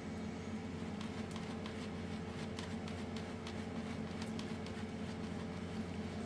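The small air pump of an Anycubic Photon M3 Max resin auto-feed unit hums steadily at 100% feed speed, blowing air into the resin bottle. A few light plastic clicks come from the bottle cap as it is pressed and seated.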